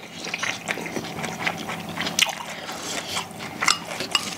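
Close-miked eating sounds: wet chewing and mouth noises from food taken off a spoon and chopsticks, with scattered light clicks of utensils against bowls.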